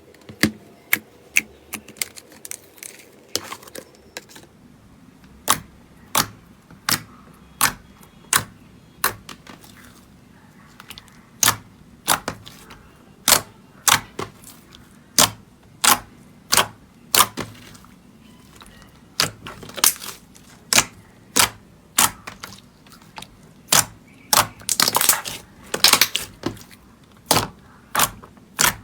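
Slime being pressed and poked by hand, giving sharp popping clicks one after another, about one or two a second, with a quick flurry near the end.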